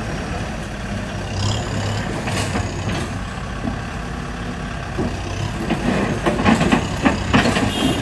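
Heavy construction-vehicle diesel engine running steadily, with a run of clanks and rattles over the last three seconds.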